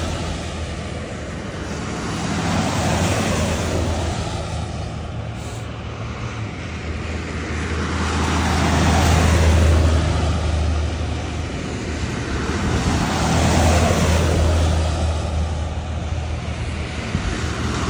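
A line of buses driving past one after another, each pass swelling and fading every few seconds, over a steady low engine hum.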